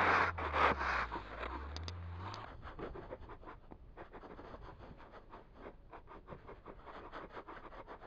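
Snow shovels scraping and pushing snow across lake ice: a few loud close scrapes over a low steady hum at first, then, after about two and a half seconds, a quieter run of short, rapid scrapes.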